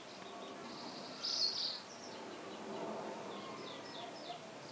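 Birds chirping: short, quick, descending high chirps in runs of three or four. About a second and a half in there is a brief, louder high-pitched squeak.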